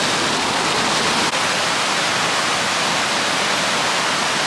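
Water rushing and splashing at a working watermill, a loud steady rush.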